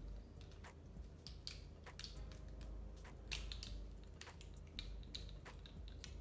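Small, irregular clicks and taps of plastic lip gloss tubes and applicator wands being handled and opened, over a low steady hum.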